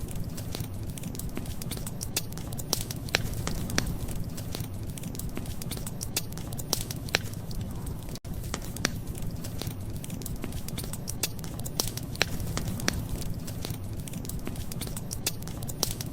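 Wood fire crackling, with frequent irregular sharp pops over a steady low rumble. The sound cuts out for a split second about halfway through.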